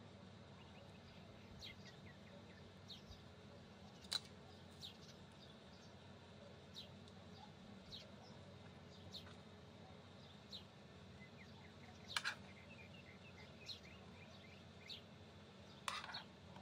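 Near-silent room tone with a steady low hum, faint short high chirps scattered throughout, and a few light clicks, the sharpest about four, twelve and sixteen seconds in.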